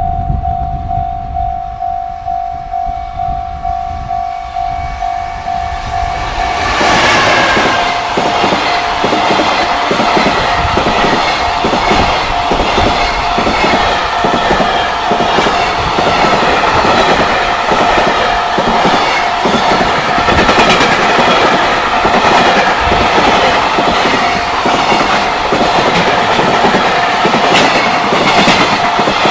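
A Japanese level-crossing warning bell rings with a steady pulsing ding. About seven seconds in, a JR Freight container train passes close by and gets much louder. Its wheels click rhythmically over the rail joints as the wagons roll past, and the crossing bell keeps ringing under it.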